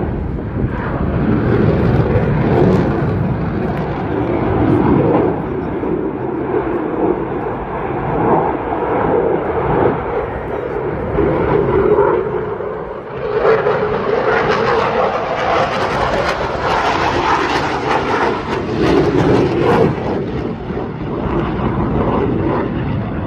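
Eurofighter Typhoon fighter jet's twin EJ200 turbofan engines, a loud, rough, continuous jet noise that swells and fades as the jet manoeuvres. About halfway through it turns brighter and harsher.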